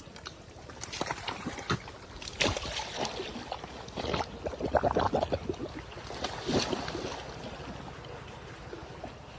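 Water splashing and dripping as a cast net is worked: a few sharp splashes, with a dense patter of drips near the middle.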